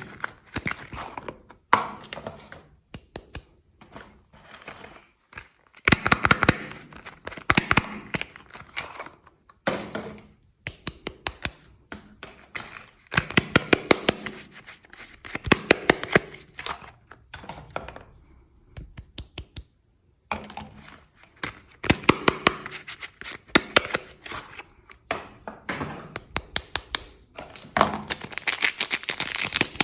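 Soap bars being unwrapped: packaging crinkling and tearing in bursts of sharp clicks and taps, broken by short pauses.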